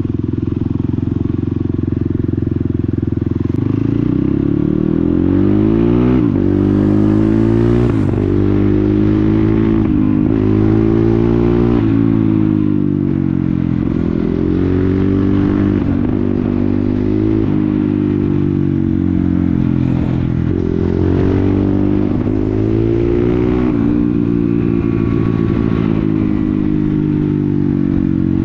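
Dirt bike with a loud exhaust being ridden. The engine runs at a steady pitch at first, then about four seconds in it starts rising and falling again and again as the rider accelerates and eases off or shifts.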